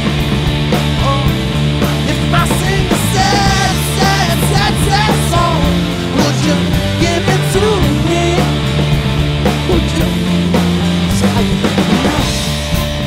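Rock music with a singing voice over a steady bass line.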